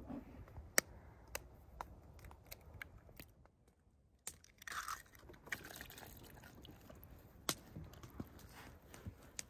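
Eggs being handled and cracked, heard as a series of sharp clicks. After a brief hush, a hand works the raw eggs into flour in an enamel bowl.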